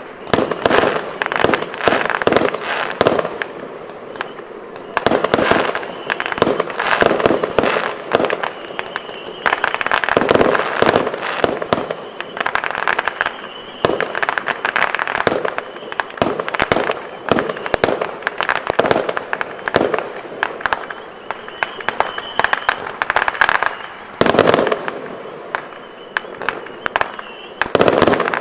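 Fireworks going off: dense volleys of sharp bangs and crackling, in clusters with short lulls between them.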